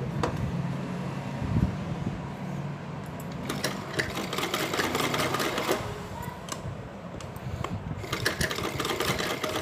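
Old black domestic sewing machine stitching, its needle going up and down in quick ticking runs: one stretch from about three and a half to six seconds in, another near the end, with slower running between.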